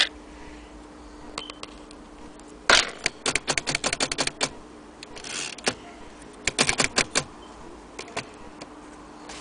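Vintage Underwood typewriter being typed on: two quick runs of key strikes, about three and six and a half seconds in, with a few scattered single clicks between.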